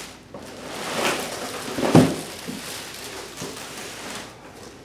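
Plastic wrapping rustling and cardboard packaging being handled while a generator is unpacked from its box, with one heavy thump about two seconds in.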